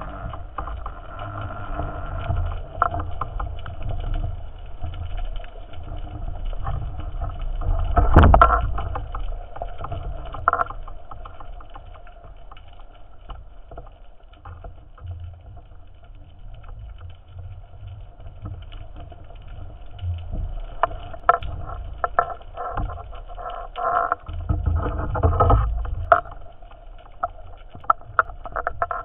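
Muffled underwater sound picked up by a camera in a waterproof housing: a steady low rumble and hum with scattered clicks and knocks. There is a louder thump about eight seconds in, and a run of knocks a few seconds before the end.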